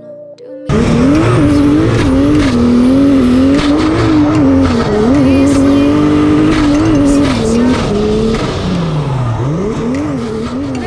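Toyota Mark II drift car at full effort, its engine held high in the revs with the pitch bouncing up and down on the throttle, over loud tire squeal as it slides. It cuts in abruptly under a second in. Near the end the revs drop sharply and climb again.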